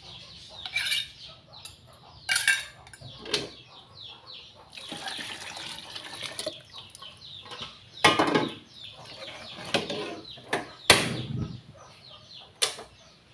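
A metal ladle scraping and clinking against an aluminium cooking pot as a fish curry paste is stirred, with water poured into the pot partway through and a few loud metal knocks.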